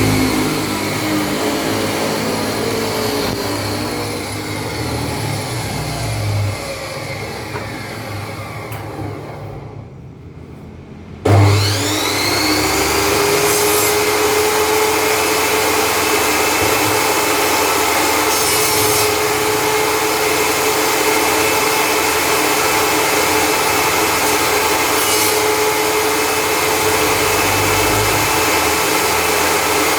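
Table saw motor and blade winding down to a stop, then switched on again after a short pause, spinning up quickly and running steadily. Short hisses as wood touches the blade come a few times.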